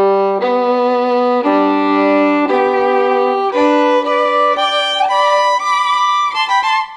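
Music: a violin playing a slow melody of long held notes, one about every second, moving to quicker notes near the end.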